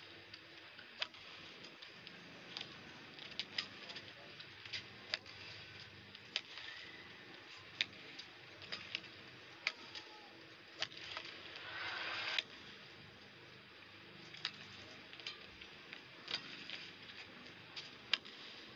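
Badminton rally: rackets striking the shuttlecock with sharp cracks, back and forth about once a second, with short squeaks of court shoes between hits. A brief rush of noise comes about twelve seconds in.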